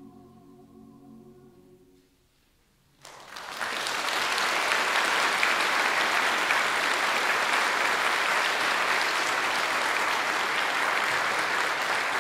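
The last held chord of the music dies away, then after a brief hush audience applause breaks out suddenly about three seconds in and continues steadily.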